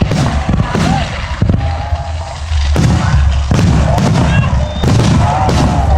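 Aerial fireworks bursting: a string of sharp bangs a second or so apart over a continuous low rumble.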